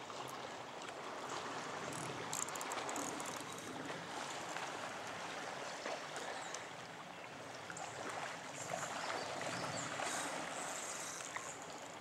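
Steady rush of shallow river current flowing and rippling.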